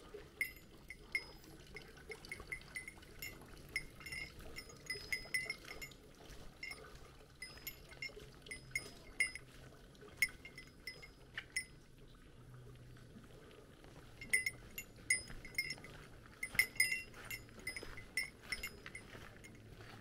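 Small metal bear bell on a walking hiker's pack, jingling in short uneven clusters with the steps. It goes quieter for a couple of seconds around the middle.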